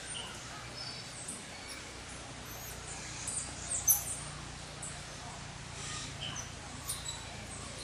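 Golden lion tamarins giving short, high-pitched chirps and squeaks, scattered through, with the loudest cluster about four seconds in. A faint low steady hum runs underneath.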